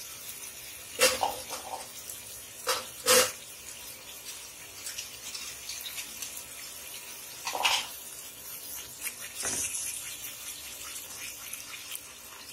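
Water poured from a vessel into a pan of thick masala gravy, splashing into it, with a few sharp knocks along the way.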